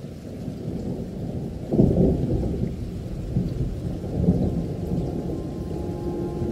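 Thunderstorm recording: rolling thunder over steady rain, loudest about two seconds in and swelling again around four seconds. Held musical notes begin near the end.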